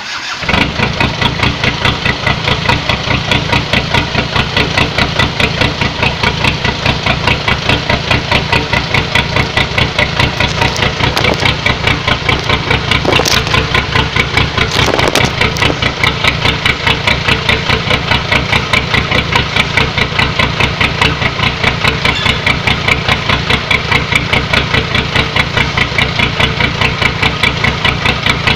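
Isuzu TFR pickup's exhaust, with the pipe ending ahead of the rear axle, as the engine starts and then idles with an even pulsing beat.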